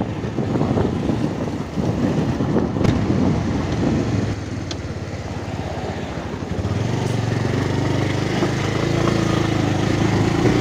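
Motorcycle engine running while riding, mixed with wind and road noise. The engine note grows clearer and a little louder in the second half.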